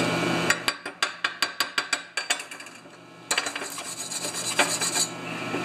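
A welder's chipping hammer knocks slag off a fresh tack weld on a snowblower pulley in a quick run of about a dozen sharp taps. After a short pause, about three seconds in, a steel wire brush scrubs the weld clean.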